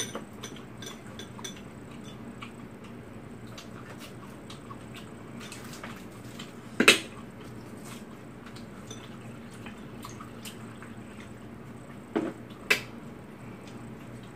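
Chopsticks and tableware clicking and tapping against bowls and dishes during a meal, with a few sharper knocks, the loudest about seven seconds in and two more near the end.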